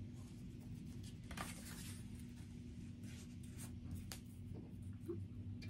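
Construction-paper feathers being handled and pressed onto a paper strip on a tabletop: soft paper rustles and a few light taps over a steady low hum.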